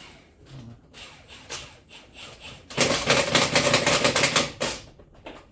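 A power impact wrench runs in one rattling burst of rapid hammering, about two seconds long, starting a little before the midpoint. Light clanks of tools come before it.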